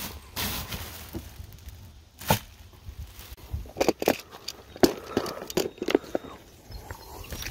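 Handling noise: a plastic bag crinkling, then a clear plastic tackle box of lures being handled, with a run of sharp clicks and knocks from about two seconds in.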